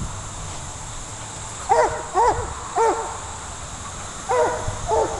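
A puppy barking: five short, high barks, three close together about two seconds in and two more near the end.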